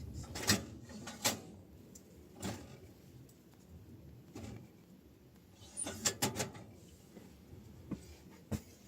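Irregular light knocks and clicks, several single ones spread out and a quick cluster about six seconds in.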